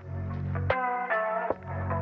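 Background music: a guitar-led track with a steady beat and bass.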